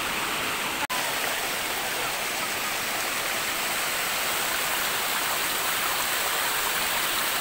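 Shallow mountain stream rushing over rocks in small cascades: a steady, full hiss of running water, with a split-second gap about a second in.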